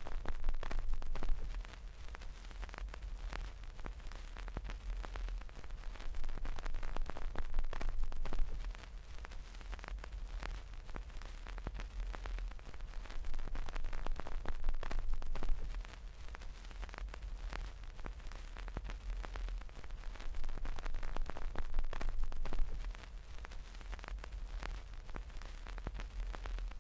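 Hands rubbing and handling the white faux-fur cover of a homemade binaural microphone, heard right at the mic as a dense scratchy rustle over a low handling rumble. The rubbing swells into louder spells of two or three seconds, four times.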